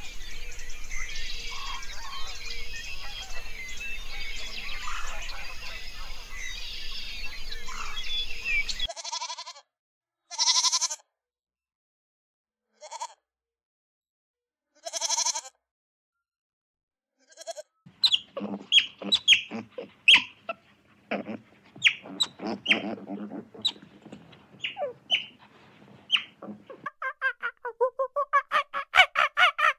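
Goat bleating three times, short bleats a couple of seconds apart with silence between, after several seconds of chirping ambience. A run of sharp clicks follows, and near the end come rapid, repeated high calls.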